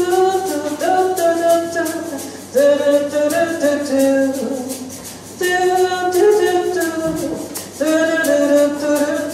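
A woman singing a wordless melody in four phrases of held notes that step up and down, over a quick, steady ticking beat like a shaker.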